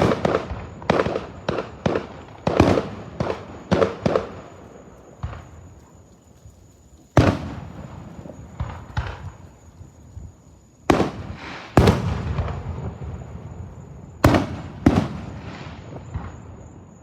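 A series of loud explosive bangs, each with an echoing tail. They come quickly and irregularly at first, several a second, then thin out to single bangs a second or more apart.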